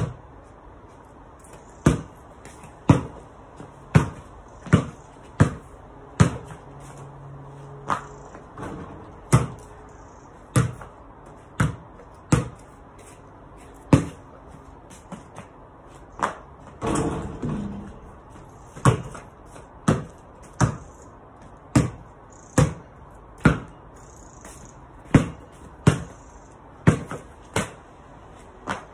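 Basketball bouncing on a paved patio, a series of sharp bounces about one to two a second with uneven gaps. Near the middle comes one longer, noisier sound lasting about a second.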